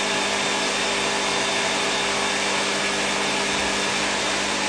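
Powerful blender motor running steadily at full speed with a constant hum, blending sunflower seeds with lemon, salt and pepper into a creamy spread.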